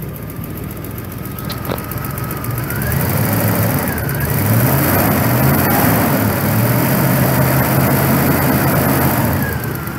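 Triumph Stag 3.0-litre V8 running, freshly started on newly fitted electronic ignition and warming up. About three seconds in it is revved by hand at the carburettor throttle linkage. It rises and wavers, is held at raised revs for several seconds, then drops back to idle near the end.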